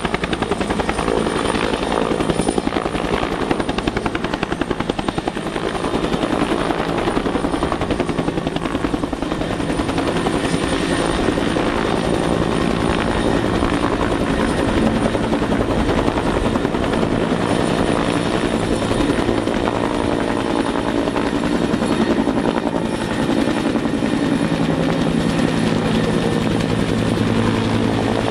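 Bell 212 twin-turbine helicopter with its two-bladed main rotor running at full power in a hover and climb under a long-line water bucket, giving a steady rhythmic rotor thump (the 'Teppichklopfer' carpet-beater beat) over a constant high turbine whine.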